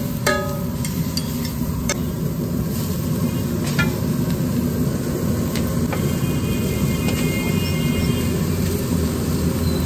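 Steel spatula clanking against a large flat iron griddle, a few ringing metal strikes in the first two seconds and a couple more later, over a steady low rumble.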